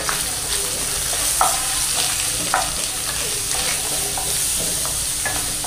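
Freshly added chopped onions sizzling steadily in hot oil in a kadai while a spatula stirs them, with a few short scrapes of the spatula against the pan.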